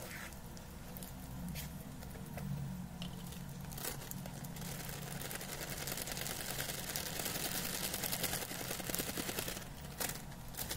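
A plastic spoon scraping and clicking through thick dough in a bowl. Then, from about four and a half seconds in until near the end, a plastic bag of wheat flour crinkles and rustles as it is tipped and the flour poured in; this is the loudest part.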